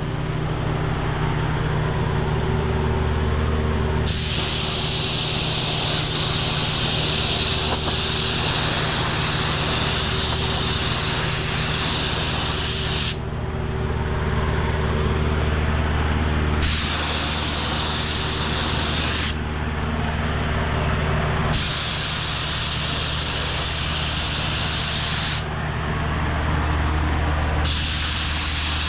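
Gravity-feed spray gun hissing as it sprays a coat of primer, in four trigger-held passes with short pauses between, the first about four seconds in and the longest about nine seconds. A steady low machine hum runs underneath.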